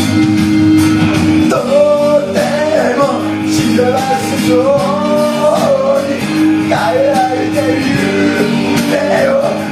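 Karaoke backing track with guitar over a steady band accompaniment; a man starts singing into the microphone about one and a half seconds in.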